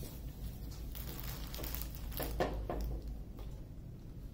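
Faint rustling and handling noises from a diamond-painting canvas being handled, with a few soft knocks and crinkles around the middle, over a steady low hum.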